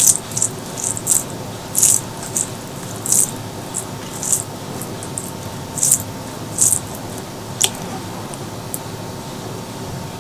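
Close-miked wet eating sounds: short, sticky smacks and squishes of food and mouth, one every half second to second, over a steady background hiss.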